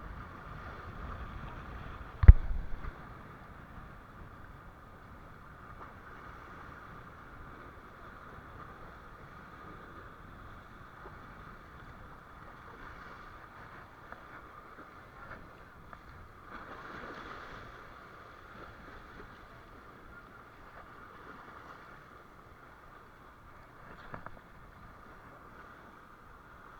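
A boat's engine running steadily while underway. About two seconds in there is one sharp, heavy knock, louder than anything else.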